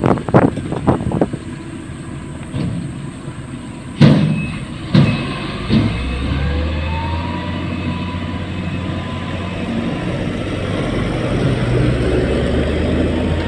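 Motor grader's diesel engine running, with a series of sharp clanks and knocks over the first half, then a steady engine drone under load that grows a little louder toward the end.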